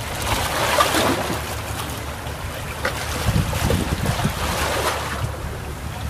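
Small waves of a calm sea washing onto a beach, the rushing wash swelling and easing as each wave comes in. Low wind rumble on the microphone runs underneath.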